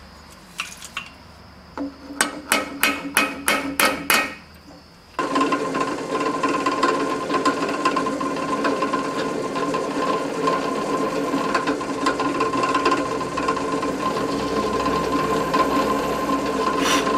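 Hammer tapping a transfer punch through the valve body's holes to mark the cast-iron cylinder head: a couple of light taps, then a quick run of about eight sharp, ringing metallic taps. About five seconds in, this gives way to a drill press running steadily with a constant whine as a twist drill bores into the cast iron.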